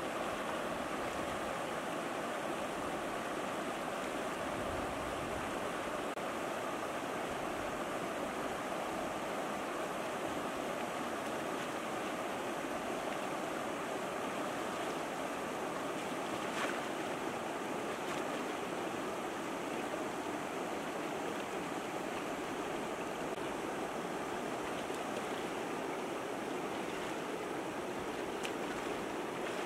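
Shallow river rushing over rocks in rapids, a steady wash of water noise, with one short click about halfway through.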